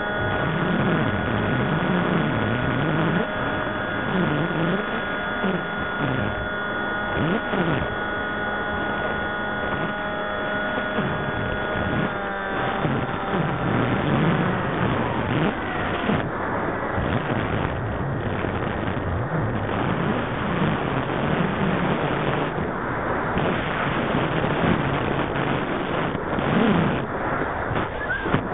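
Motor and propeller of a radio-controlled FPV model aircraft, heard through its onboard camera's microphone. The pitch rises and falls over and over with the throttle, under wind noise and a steady high whine that shifts about halfway through.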